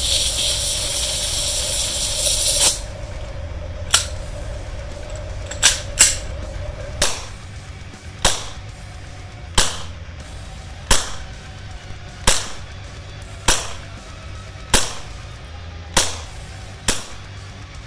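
Propane hissing into the gas magazine of an ICS BLE XPD gas blowback airsoft pistol for about two and a half seconds, then the pistol firing about a dozen single shots, one every second or so, through a chronograph.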